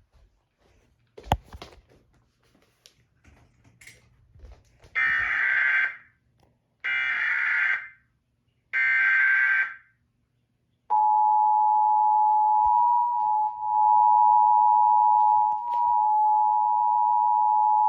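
Emergency Alert System tones: three short bursts of digital data tones about a second apart, then a steady two-tone attention signal starting about eleven seconds in. This is the opening of a Required Monthly Test alert. A sharp click comes about a second in.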